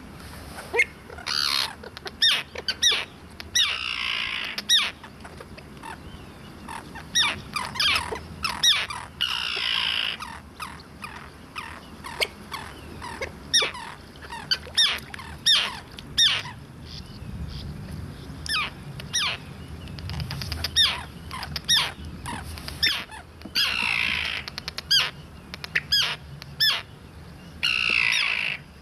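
Pied avocets calling over and over with short, clear, high 'kluut' notes, several a second at times, with a few longer, harsher calls mixed in.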